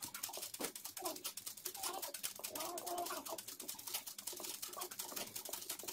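Domestic sewing machine stitching steadily, its needle making a rapid, even ticking while free-motion embroidery is sewn through fabric in a hoop. A bird calls in the background around the middle.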